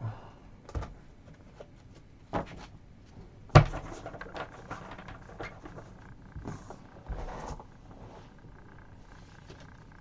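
Sports cards and card boxes being handled on a table: a few sharp knocks, the loudest about three and a half seconds in, then a few seconds of rustling and light taps.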